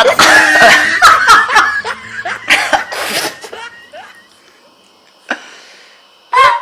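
A person laughing hard in loud, choppy bursts for about three seconds, then falling quiet, with a short click in the lull.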